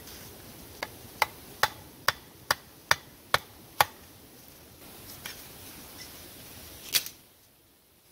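A hatchet striking wood: eight sharp knocks in a steady rhythm, about two a second, then a pause and two more single knocks, the last of them loud.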